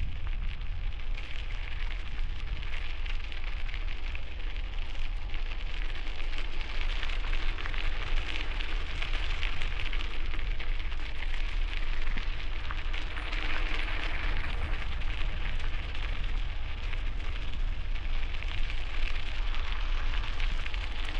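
Strong wind buffeting a helmet-mounted camera microphone while cycling: a steady heavy low rumble under a rough, rustling hiss that swells and eases.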